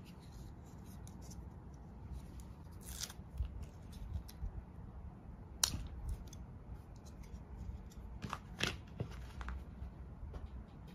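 Plastic handling sounds as a clear phone case and a round phone grip are unpacked and fitted: scattered crisp clicks and crinkles of packaging and plastic, the sharpest about three, five and a half and eight and a half seconds in.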